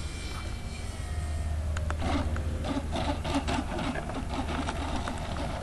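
Radio-controlled model airplane landing: its motor note falls in pitch, then from about two seconds in its wheels make a loud, rough rasping rattle as it rolls over the dirt strip.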